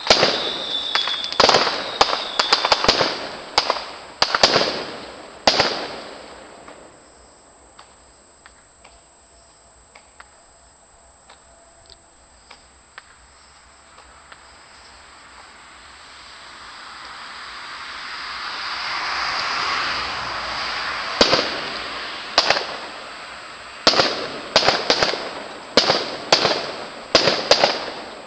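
Aerial fireworks display: a rapid run of sharp bangs from shells bursting, then a lull of several seconds with only faint crackles. A hiss swells up over several seconds, and a new rapid series of bangs follows near the end.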